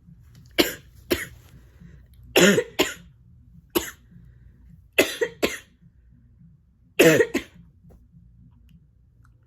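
A person with a cold in a fit of short, sharp sneezes and coughs: about eight bursts, mostly in quick pairs.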